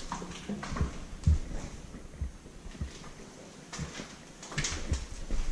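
Irregular soft thumps and scuffs of a person walking and moving about in a littered room, with one heavier thump about a second and a quarter in.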